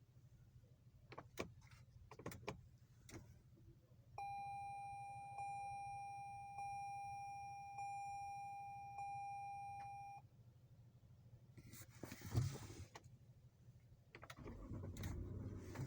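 Electronic warning buzzer giving one steady mid-pitched tone for about six seconds, pulsing about once a second, starting about four seconds in. Under it runs a low hum with scattered clicks, and there is a single knock about twelve seconds in.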